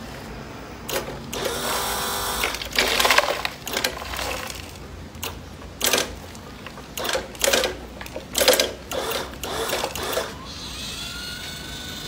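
Electric gear motors of a large toy RC excavator whining in a series of short bursts and longer runs as the boom, arm and bucket move.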